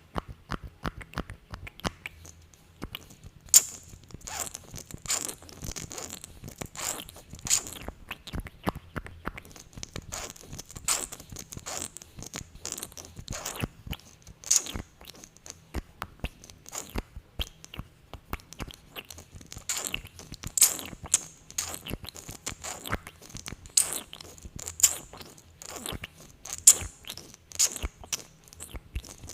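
Close-miked sticky, glossy lip and mouth sounds: a dense, irregular run of small wet clicks and smacks.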